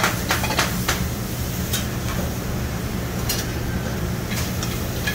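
Clinks and clatter of dishes, pans and metal utensils in a busy commercial kitchen, several in quick succession in the first second and a few scattered after, over a steady low hum of kitchen equipment.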